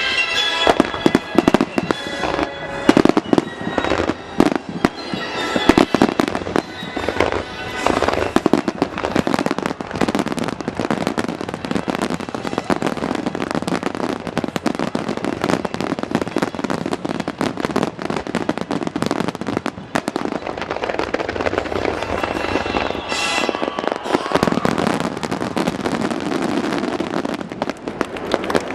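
Fireworks display: a rapid barrage of shells bursting in quick succession, turning into a dense continuous crackle after about eight seconds, with music playing underneath.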